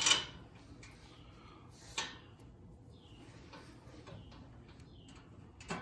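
Short scrapes and clunks of the steel skid plate and its bolts being shifted and lined up into the mounting holes: one at the start, one about two seconds in and one near the end, with faint rustling between.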